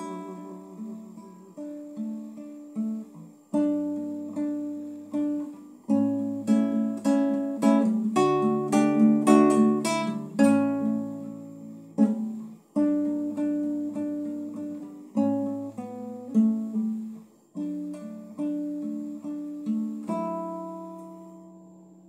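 Solo acoustic guitar, plucked notes and chords with no voice, as the instrumental close of a song. A last chord about two seconds before the end rings out and fades away.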